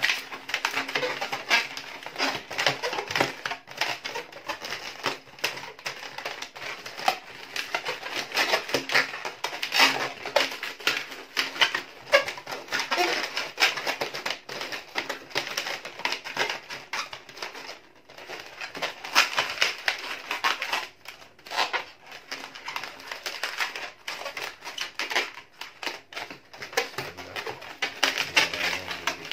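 Inflated latex modelling balloons being squeezed and twisted by hand: a continuous, irregular run of rubbery squeaks and rubbing.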